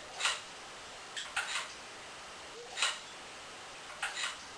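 8 hp small engine turned over by hand with its muffler plugged, air escaping in short hissing puffs about once a second. The hiss of compression leaking out from somewhere, a sign the engine is not holding compression.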